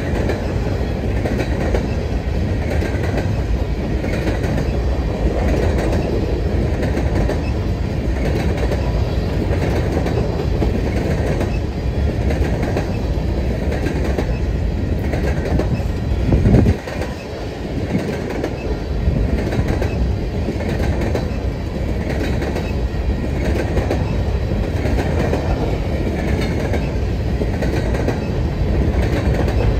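Freight train cars rolling past close by, wheels clicking in a steady rhythm over the rail joints. There is a brief louder surge about halfway through, then a short dip.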